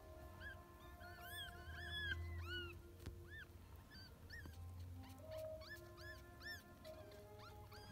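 Newborn kittens mewing: many short, faint, high squeaky cries that rise and fall, coming in clusters, first over the first few seconds and again around six seconds in.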